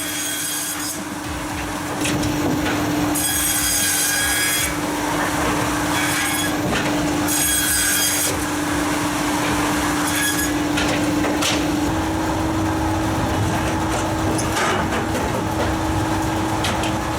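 Pezzoletto Professional 2.0 firewood processor at work: its large circular saw disc cuts through logs in repeated bursts over the steady hum of its electric motor.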